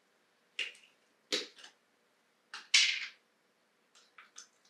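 A Nutella jar's plastic lid twisted off and set down, then a knife scraping inside the jar: a few short scrapes and clicks, the loudest about three seconds in, with lighter quick clicks near the end.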